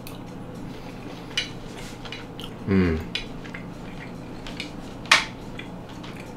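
Metal fork clinking and scraping against a ceramic dinner plate a few times during eating, the sharpest clink about five seconds in. A short hummed voice sound comes near the three-second mark.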